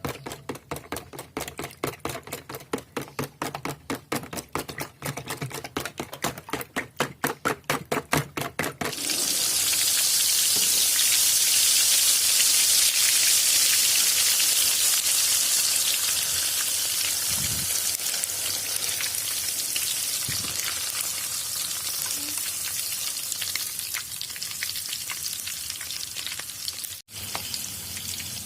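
Rapid rhythmic strokes of beaten egg being stirred, about four a second. About nine seconds in, egg mixture hits hot oil with a sudden loud sizzle that slowly fades as it fries.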